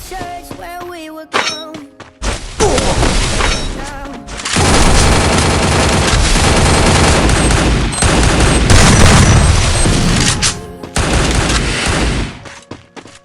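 Loud, rapid gunfire with booms from a shooter video game, starting about two seconds in over the tail of a pop song and running almost without a break, dipping briefly near the end.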